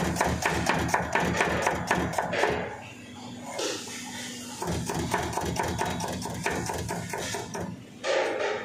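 Chef's knife chopping an onion on a plastic cutting board: a rapid run of knife strokes, pausing about three seconds in and starting again about two seconds later. A steady low hum runs underneath.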